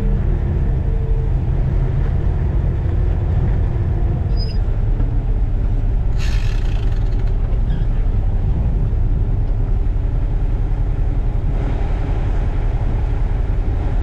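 International ProStar semi-truck's diesel engine running at low revs while the tractor-trailer is backed slowly up to a loading dock. A short hiss comes about six seconds in.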